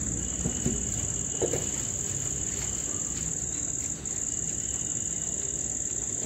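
Crickets trilling, a steady high-pitched drone that doesn't let up.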